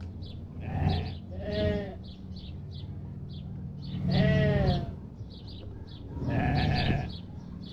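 A flock of sheep bleating: several separate wavering bleats a few seconds apart, the longest and loudest about halfway through. A faint high chirping keeps up steadily behind them.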